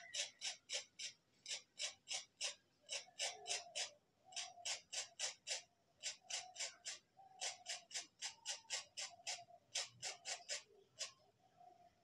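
Sandpaper rubbed back and forth on the corroded metal terminal pins of an electric kettle's base, in quick rasping strokes about three a second. There are short pauses about four and six seconds in, and the strokes stop about a second before the end. The rubbing is cleaning off corrosion that the repairer blames on water getting into the kettle's connector.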